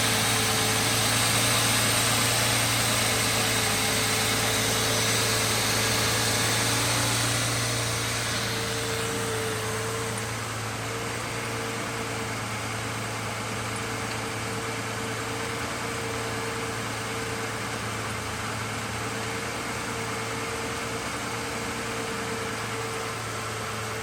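Truck engine idling steadily. About a third of the way in it becomes quieter and less hissy, then settles at a lower, even level.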